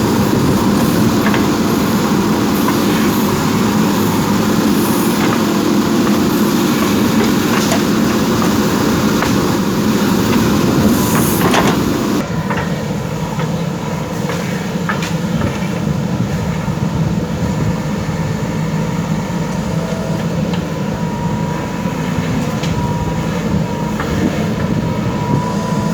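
JCB 3DX backhoe loader's diesel engine running steadily while it digs, with scattered clanks. The sound changes abruptly about halfway through.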